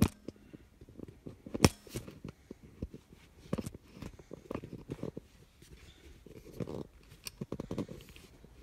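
Hands rummaging through stored items and a cardboard box: rustling and scraping with an irregular string of small knocks and clicks, the sharpest knock about a second and a half in.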